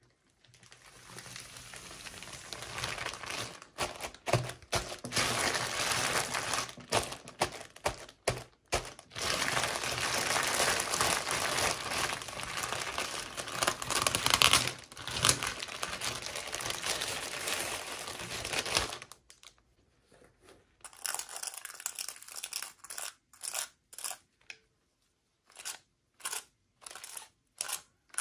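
Packaging being crinkled and torn open by hand during an unboxing: a long stretch of dense crackling, then a series of short separate crinkles near the end.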